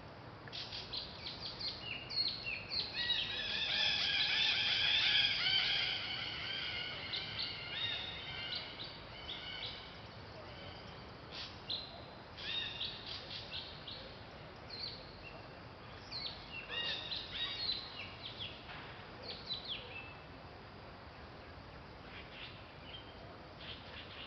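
Birds chirping and calling: a dense burst of overlapping calls in the first several seconds, then scattered short chirps that thin out toward the end.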